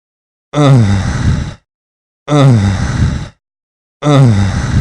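A breathy, sultry moan with a falling pitch, sounded three times as identical repeats of the same recording, about a second each with short silences between.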